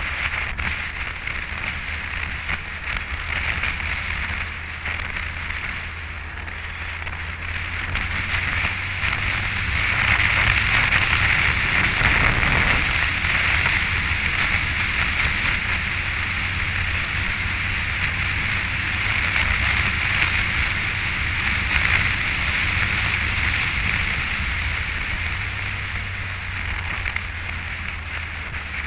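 Yamaha FJR1300 motorcycle under way: wind rushing over the microphone with the low drone of the inline-four engine and road noise underneath. It grows louder about a third of the way in as speed builds and eases off near the end.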